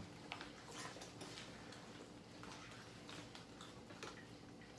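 Quiet room tone with a low steady hum and a few faint, scattered clicks and taps.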